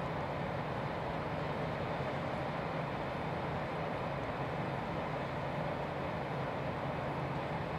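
Coal train being loaded as its wagons creep under a loading silo: a steady mechanical rush of the loading and the moving train, with a low hum underneath.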